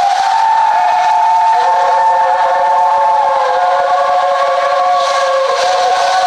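Steam locomotive chime whistle sounding one long, steady multi-note blast over hissing steam. A lower note joins about a second and a half in.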